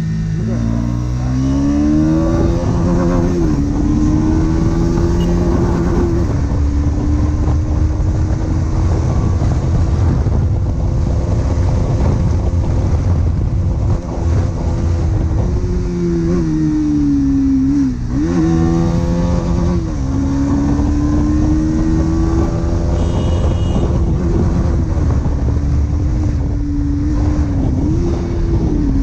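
Bajaj Pulsar NS200's single-cylinder engine through its stock exhaust while riding, running steadily at cruising revs. Its pitch drops and climbs again with gear changes right at the start, about two-thirds through and near the end, over a low rumble of wind and road.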